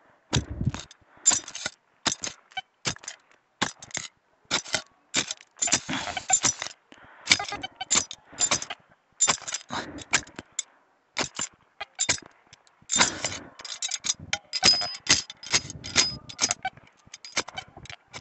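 Metal digging tool striking and scraping into soil and pine-needle litter, a quick irregular run of crunches, scrapes and small clinks. It is digging out a shallow ferrous metal-detector target.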